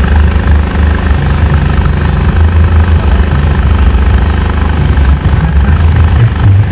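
Very loud, bass-heavy music from a 'sound horeg' parade sound system. Deep bass notes shift in pitch every second or so and swamp everything else.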